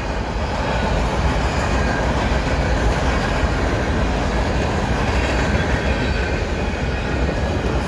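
Cars of a CN freight train rolling past, with a steady noise of steel wheels on the rails.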